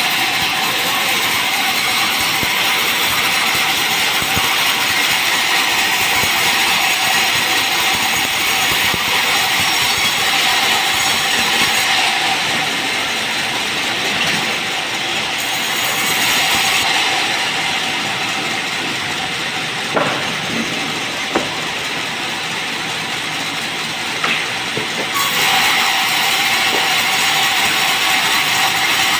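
Sawmill band saw running and ripping a Merbau hardwood board lengthwise: a steady rasping hiss of the blade in the wood over a steady machine tone. The sound shifts a few times as the board feeds through, with a few short knocks about two-thirds of the way in.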